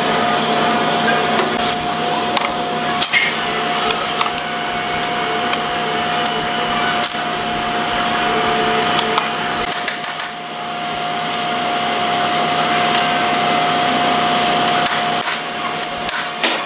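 A steady mechanical hum with a constant whine, and a few sharp metallic knocks and clinks of hand tools on the engine. The whine stops near the end.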